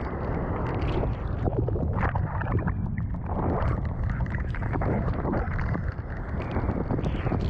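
Rushing, spattering whitewater as a surfboard rides a breaking wave, with steady wind rumble on a board-mounted action camera's microphone.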